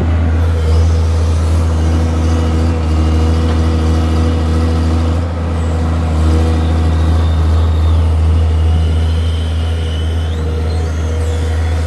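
Tata Hitachi EX130 excavator's diesel engine running steadily with a deep hum, with a thin high whine that comes in during the second half.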